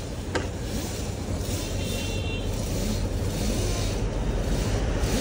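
A car engine running steadily with a low hum, and one sharp click about half a second in.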